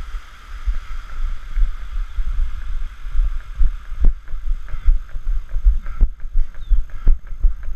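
Running footfalls on a rocky dirt trail, heard as steady low thuds through a body-mounted camera, with wind buffeting the microphone. A small stream trickles over rocks at first and fades out about three or four seconds in, after which sharper footstep knocks stand out.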